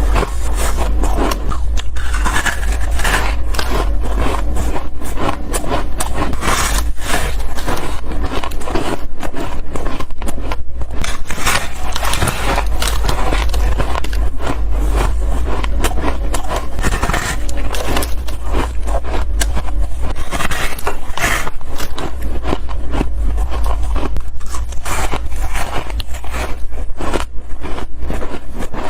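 Freezer frost being bitten close to the microphone: a dense, continuous run of squeaky, crunchy bites with crackling, over a steady low hum.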